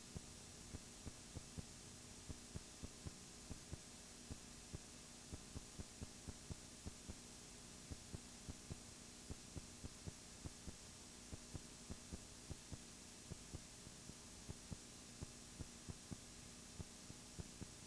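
Near silence: a faint steady electrical hum with irregular low clicks, about two a second. No sound of the match or crowd is heard.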